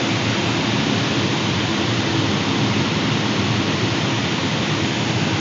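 Steady rushing air noise inside a glider's cockpit in flight, with air streaming past the canopy.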